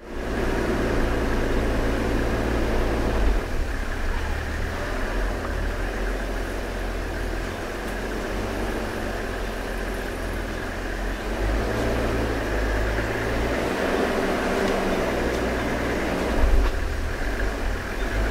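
Four-wheel-drive vehicle's engine running at low speed, heard from inside the cab, its note shifting a few times as it drives a rough dirt track. A brief louder knock near the end.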